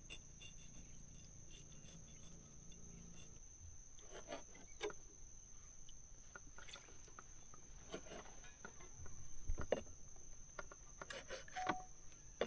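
Steel cleaver chopping small fish into bait on a wooden boat gunwale: a few scattered knocks and scrapes, the loudest about three-quarters of the way through.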